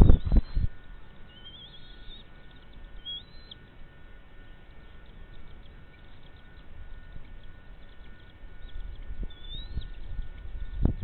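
A few short, high, upward-sliding bird chirps over a low rumble of wind or handling noise on the microphone, with a cluster of loud knocks at the very start.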